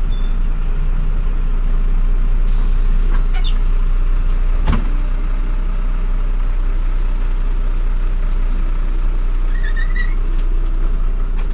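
Jelcz M121M city bus running, a steady engine drone and road noise heard from inside the passenger cabin. A single sharp knock comes about halfway through.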